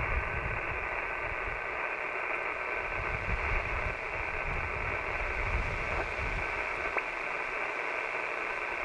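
Steady hiss of HF band noise from an Icom IC-7300 transceiver's speaker on 20 meters, the receiver listening after a CQ call with no station answering. Two faint ticks come about a second apart past the middle.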